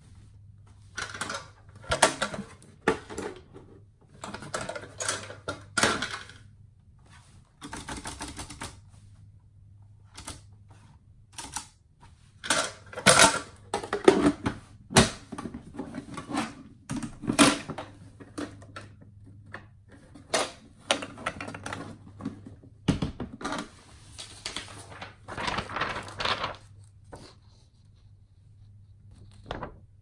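Irregular clicks, knocks and short clattering rattles from a 1947 Hermes Baby portable typewriter being handled and shut into its case, loudest around the middle, over a faint steady low hum.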